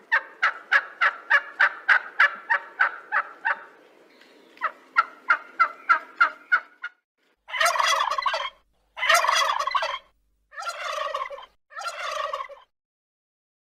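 Wild turkey calling and gobbling. First come two quick runs of short repeated notes, about four a second with a short pause between the runs. Then come four longer gobbles of about a second each.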